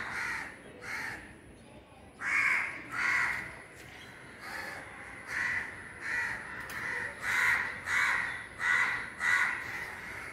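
Crows cawing repeatedly, about a dozen harsh caws, some in quick pairs: agitated crows calling at a cat close to their nest.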